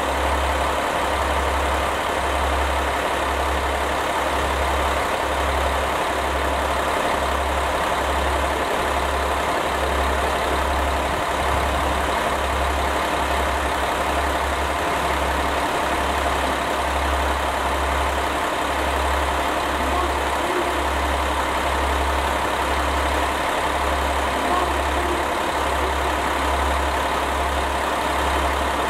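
Diesel rail engine idling steadily, with a low throb that comes and goes about once a second.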